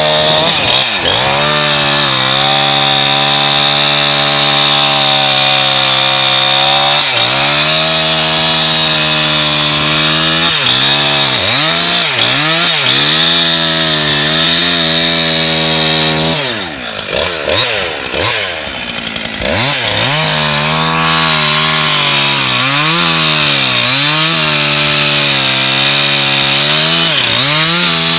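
Gas chainsaw running at high revs while cutting through thick ice. Its pitch dips again and again as the bar bogs down in the cut. About two-thirds of the way through it drops back briefly, then revs up again.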